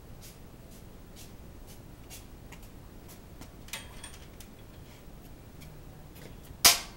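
Faint, irregular metallic clicks of hand tools being worked under a car on a lift, a small clatter about halfway, then one loud, sharp metal clank near the end.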